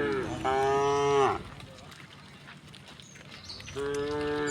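Cows mooing: the end of one moo, then a second moo about half a second in lasting about a second, and a third starting near the end. Each call holds a steady pitch and drops as it trails off.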